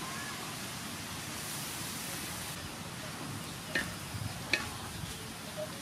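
Steady hiss of shrimp frying in oil in an aluminium wok as shredded bamboo shoots are tipped in, with two light knocks against the wok a little under a second apart, about four seconds in.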